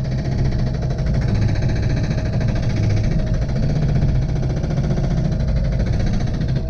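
Excavator's diesel engine running steadily with a low drone and no clear splits or impacts.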